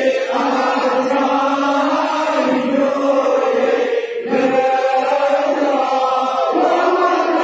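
Many men's voices chanting together in long, held devotional phrases, with a short break about four seconds in.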